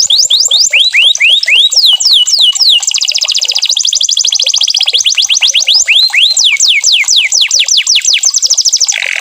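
Domestic canary singing: rapid runs of repeated whistled sweeps, rising in some phrases and falling in others, switching to a new repeated note every second or two. About three seconds in there is a very fast trill, and near the end a short harsh buzz.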